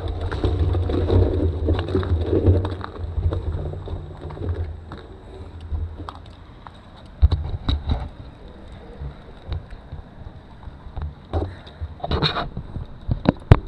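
Low rumbling noise on the camera microphone, easing off after about five seconds, followed by scattered sharp knocks and clicks of handling.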